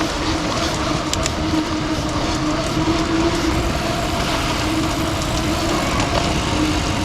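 Riding noise from a mountain bike: steady wind rush and tyre noise on a wet surface, with a faint wavering hum and a couple of brief rattles about a second in.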